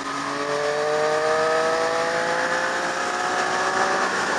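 Motorcycle engine pulling hard through one gear, its pitch rising steadily for about four seconds and easing off just before the end, over a steady rush of wind noise.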